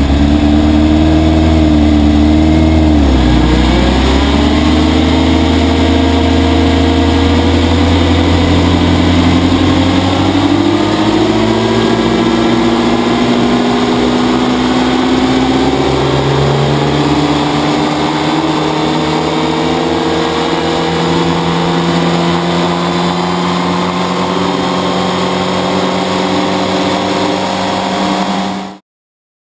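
Motorcycle engine of a propeller drive system running and turning the propeller. It runs steadily, with a brief dip in pitch about three seconds in. The pitch then climbs in two steps as it is given more power, and the sound cuts off abruptly near the end.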